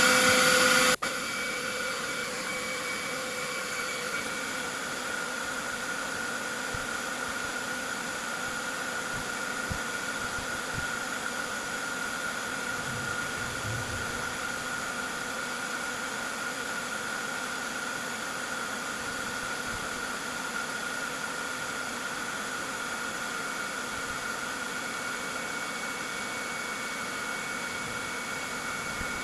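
Ingco cordless leaf blower running continuously with its trigger held on: a steady motor whine over the rush of air. It is louder for about the first second, then settles to an even level. This is the blower's battery run-down test.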